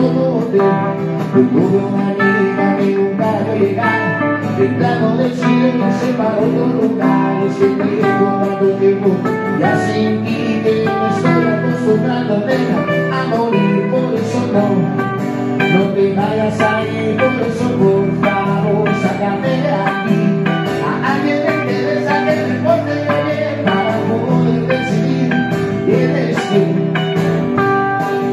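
Acoustic rock band playing, led by plucked guitar over a steady bass line.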